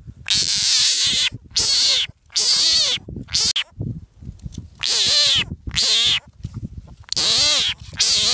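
A frog, gripped in a hand, giving loud distress calls: about eight cries, each under a second and rising and falling in pitch, with short gaps between them.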